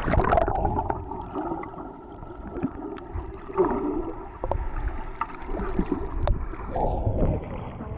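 Sea water sloshing and gurgling close to the microphone, with scattered splashes and knocks.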